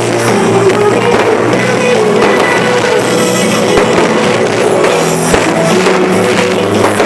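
Pop-rock song with singing, drums and guitar, played loud over the show's sound system for a pyromusical fireworks display.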